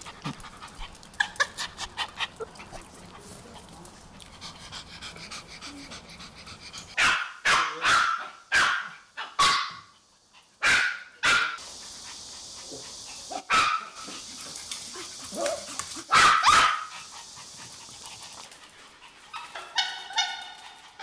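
Maltese dogs barking in short, sharp bursts, a quick run of barks about seven seconds in and more scattered after: the dogs are excited to go out for a walk.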